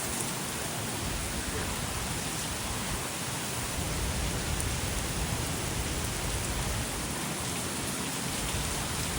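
Heavy rain falling steadily: a dense, even hiss of typhoon rain, with a few faint ticks.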